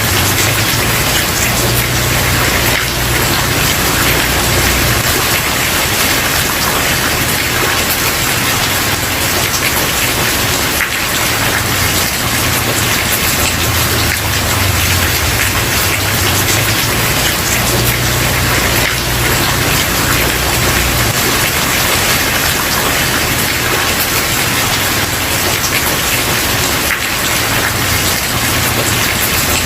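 Steady, dense rain falling on a wooden porch, with a low rumble underneath that swells and fades every few seconds.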